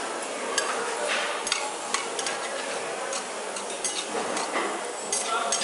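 Tomato and egg frying in a small stainless steel pan, a steady sizzle, while a utensil stirs them with scattered clicks and scrapes against the pan.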